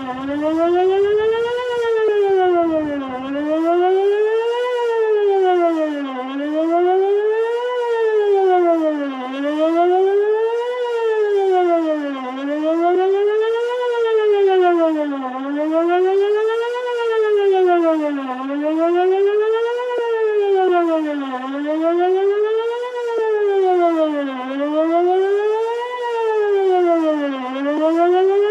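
Outdoor emergency warning siren sounding a wail during a test, its pitch rising and falling smoothly about once every three seconds.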